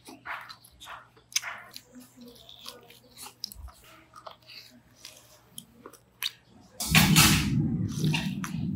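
Close-up eating sounds: a person biting into and chewing a piece of beef shank, with many short, wet mouth clicks. About seven seconds in, a loud, long slurp as broth is drunk straight from the bowl.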